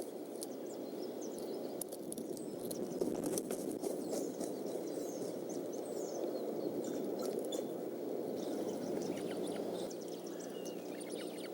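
Steady rain on the eagle nest-cam microphone, a constant hiss with a few sharp drip-like ticks, while birds chirp in short high calls throughout, more of them near the end.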